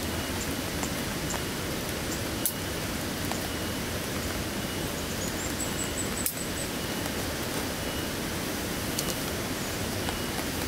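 Heavy rain falling steadily, an even hiss with a few sharp drip clicks, the loudest about two and a half seconds in and another about six seconds in.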